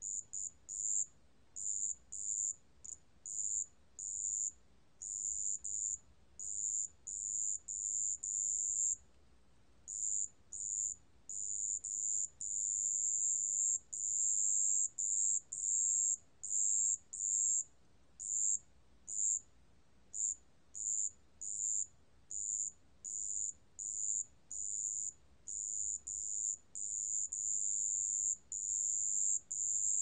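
습지방울벌레 (wetland bell cricket) singing at 27 °C: a high, pure-toned trill broken into bursts of uneven length, some brief and some over a second long.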